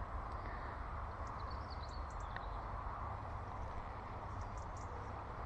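Steady rush of river water, with a few faint bird chirps between about one and a half and two and a half seconds in.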